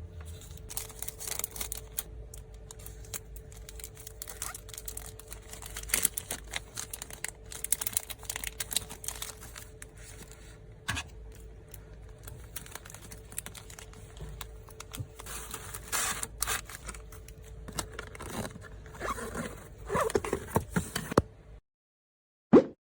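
Photocards and plastic packaging being handled for packing: continuous crinkling, scraping and rustling, with frequent light taps and clicks. The handling stops a little before the end, followed by one brief, loud, sliding tone.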